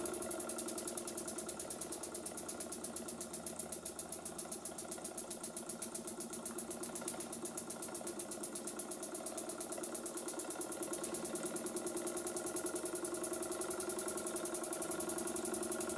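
Burnac Vulcan model steam engine running steadily under steam, with a rapid, even beat.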